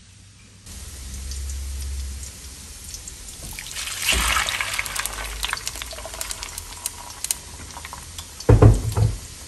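Blended tomato sauce pouring through a wire-mesh strainer into a clay pot, splashing and trickling from about three and a half seconds in. A loud knock comes near the end.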